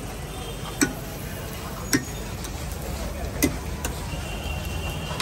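A metal spatula strikes a flat griddle three times, giving sharp clinks a second or so apart, over a steady background hiss.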